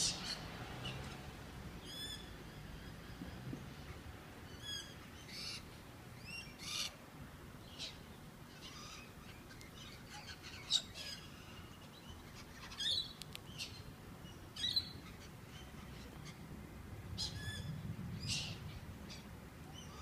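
A flock of cockatoos calling: short, high, harsh calls scattered every second or two, with a few louder single calls standing out.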